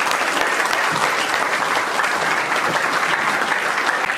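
A large seated audience clapping steadily together.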